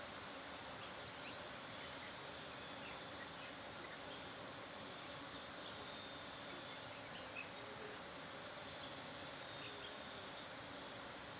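Bees buzzing in a steady hum, with faint short bird chirps scattered through.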